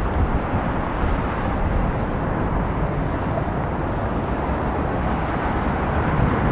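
Steady rumble of jet airliner engines with a faint high turbine whine, mixed with wind buffeting the microphone.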